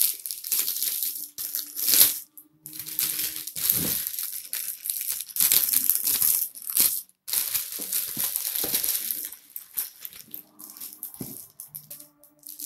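Clear plastic wrapping crinkling and rustling in irregular bursts with short pauses, as hands handle it and pull it away from a wall clock.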